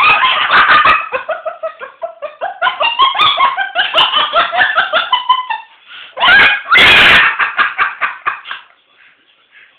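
Moluccan cockatoo laughing: a fast run of short, staccato laugh-like notes, with two louder, harsher bursts a little past halfway, dying away near the end.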